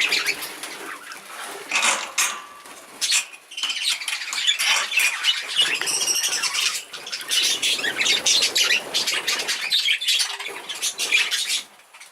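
Young exhibition budgerigars flying about in a flight, a flurry of wingbeats with budgie calls mixed in.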